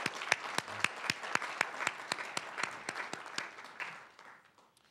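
Audience applauding, with one person's claps close by ringing out sharply and evenly, about four a second, over the crowd's clapping. The applause dies away about four seconds in.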